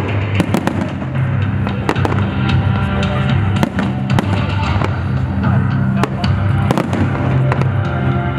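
Fireworks display: aerial shells bursting in quick succession with many sharp reports, over loud accompanying music with a steady low bass.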